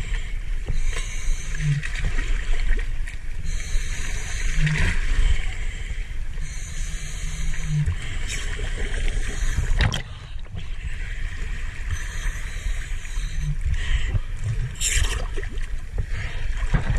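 Sea water sloshing and splashing around a scuba diver climbing down a metal ladder into the water, over a steady low rumble, with one sharp splash or knock about ten seconds in.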